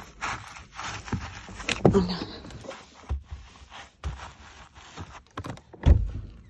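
Handling noise of a phone being carried: clothes rustling, scrapes and footsteps, with scattered knocks and one louder thump near the end.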